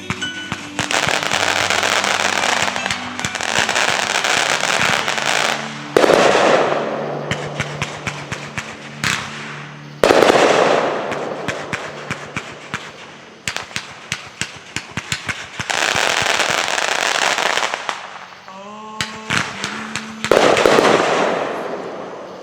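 Fireworks display: long stretches of dense crackling and rapid pops. Three loud bursts land about 6, 10 and 20 seconds in, each fading away over a few seconds.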